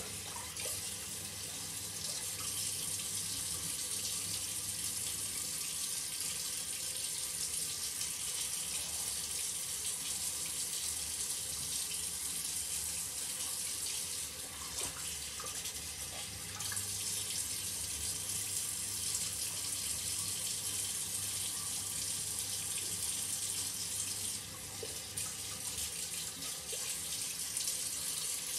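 Shower water running steadily, spraying and splashing.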